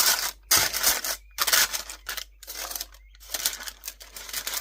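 Parchment paper lining a baking pan crinkling and rustling as it is handled and batter is pressed in, in several irregular bursts.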